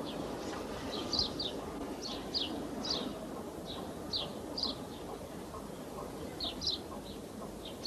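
Small birds chirping: short, high, falling chirps, often two in quick succession, at irregular intervals over a steady low hiss.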